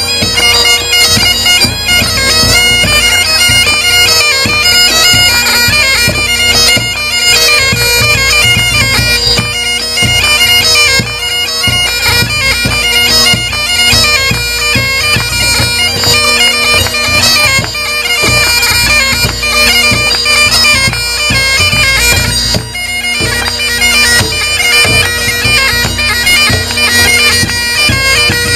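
Great Highland bagpipe playing a tune: a steady drone under the chanter's melody, continuous and loud.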